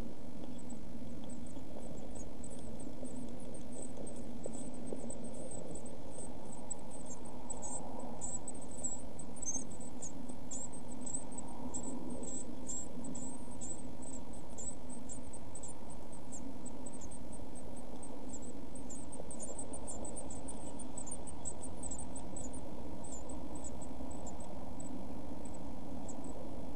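Week-old blue tit nestlings in a nest box giving many short, very high-pitched peeps, thickest through the middle, over a steady low hum.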